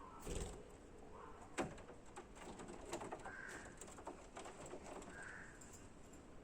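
Budgerigars chattering quietly: soft short calls every couple of seconds, mixed with quick chirps and a sharp click about one and a half seconds in.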